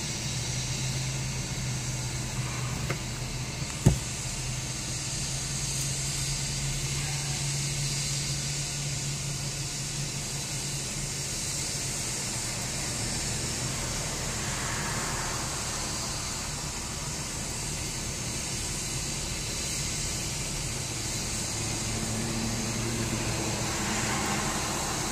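AgustaWestland AW139 twin-turbine medical helicopter running on the ground at idle with its rotor turning: a steady low hum with a constant high hiss. A single sharp knock about four seconds in.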